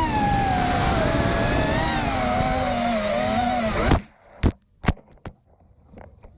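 Racing quadcopter's brushless motors and propellers whining, the pitch dropping and wavering as the throttle changes, then cutting off abruptly about four seconds in. A few sharp knocks follow.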